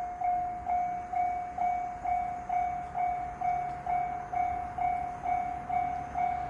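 Japanese railway level-crossing warning bell ringing, one repeated ding struck about twice a second, the signal that a train is approaching.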